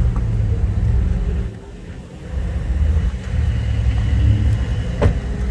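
Low, steady car engine rumble that drops away briefly about a second and a half in and then comes back, with a single sharp click near the end.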